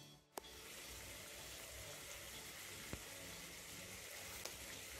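Pot of water heating on a gas stove, a faint steady hiss of bubbling water, with a few faint ticks.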